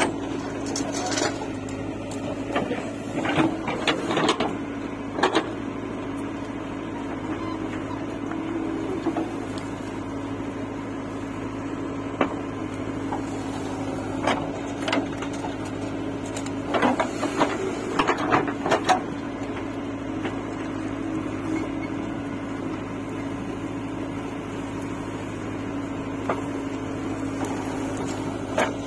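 JCB 3DX backhoe loader's diesel engine running steadily under load, with bursts of clattering as bucketfuls of soil and clods drop into a steel tractor trolley, a few times in the first seconds and again a little past the middle.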